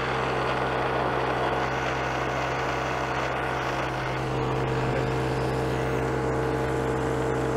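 Sharp knee mill running, its carbide cutter milling a bevel into an AR400 steel wedge wing: a steady machine hum with an even cutting noise over it.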